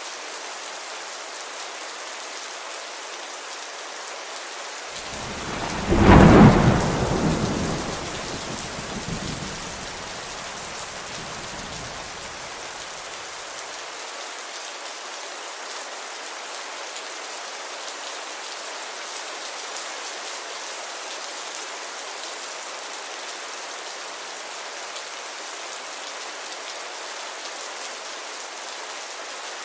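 Steady rainfall with a single thunderclap about five seconds in. The clap is the loudest part, and its low rumble dies away over the next several seconds while the rain carries on unchanged.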